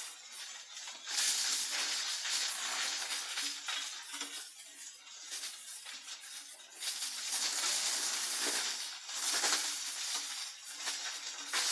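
Drum wood chipper shredding wood, a rough hissing noise that swells in three surges as pieces are fed through.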